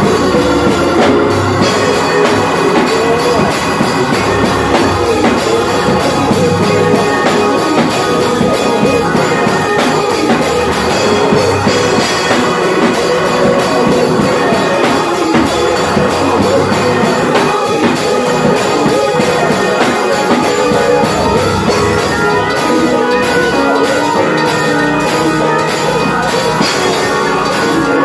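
Gospel church organ played live, with drums and tambourine keeping a steady beat: praise-and-worship music.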